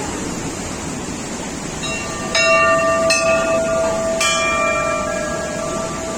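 Steady rush of a waterfall, with a temple bell struck three times about two seconds in, each strike ringing on.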